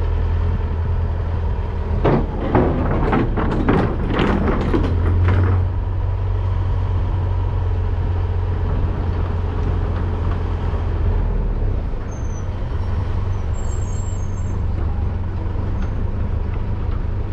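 A vehicle engine running with a steady low drone. About two seconds in comes a few seconds of sharp rattling knocks.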